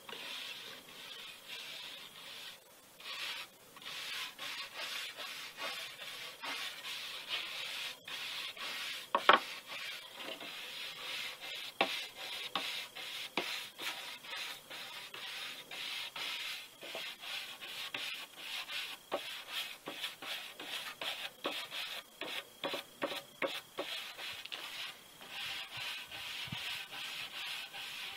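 A stiff hand brush scrubbed back and forth along a burned cedar board in quick repeated strokes, with one sharp knock about a third of the way through.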